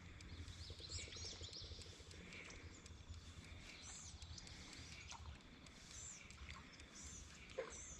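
Faint outdoor ambience: birds chirping with short, high notes scattered throughout, over a low steady rumble.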